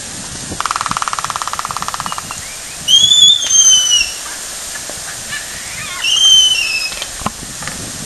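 Laysan albatross pair dancing: a rapid, even bill-clacking rattle lasting about a second and a half, then two loud high sky-calls a few seconds apart, each rising slightly and then falling.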